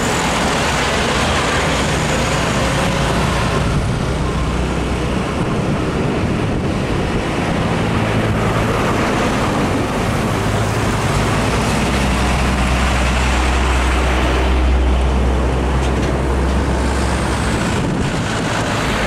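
Heavy diesel trucks, loaded Hino 500s among them, running past at close range in slow traffic, their engines and tyres making a steady road noise. The low engine rumble is strongest in the later part.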